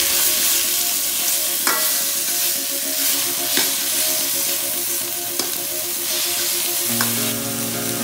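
Marinated chicken strips sizzling in a hot wok while a metal wok ladle stirs and spreads them, with about four sharp knocks of the ladle against the wok.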